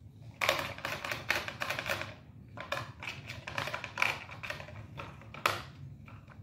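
A blue plastic toy truck rattling and clicking rapidly as a cat paws and mouths it on a tile floor, in two runs of about two seconds each, then one sharp click near the end.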